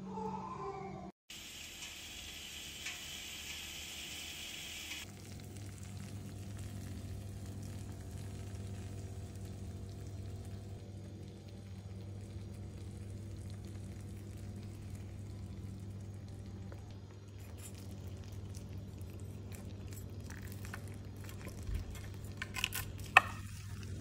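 Hot, freshly baked lasagna sizzling in its glass baking dish over a steady low hum. Near the end, a metal spatula clicks and scrapes against the glass as a portion is lifted out.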